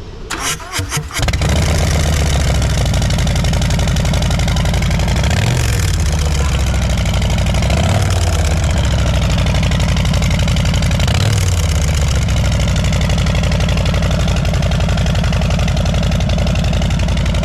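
Harley-Davidson Street Bob's 114 V-twin with a Bassani exhaust cranking on the starter and catching within about a second, then idling loud and steady with three brief blips of the throttle.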